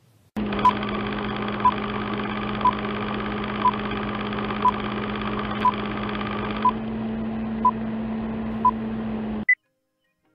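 Film countdown leader sound effect: a steady hum with a short beep once a second, nine beeps in all, then a single higher beep, after which it cuts off suddenly.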